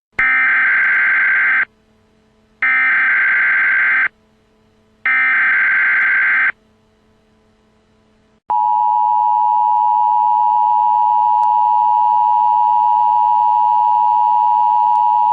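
Emergency Alert System (EAS) header: three identical bursts of digital data screech, each about a second and a half long with short gaps between. About eight seconds in comes the steady two-tone EAS attention signal, a loud unbroken tone that holds on.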